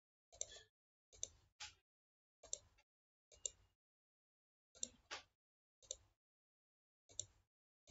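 Computer mouse clicking: about nine short, sharp clicks at irregular intervals, a few in quick pairs, as dimensions are picked and placed in CAD software.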